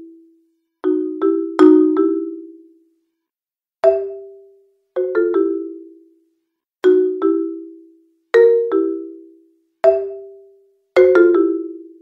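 Background music: a sparse tune of short struck, bell-like notes in groups of one to three. Each group rings out and dies away before the next begins, about every second or so.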